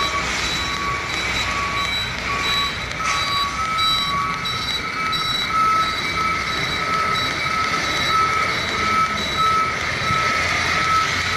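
Truck reversing alarm beeping steadily, about one and a half beeps a second, over a low truck-engine rumble. The beep's pitch steps up slightly about three seconds in.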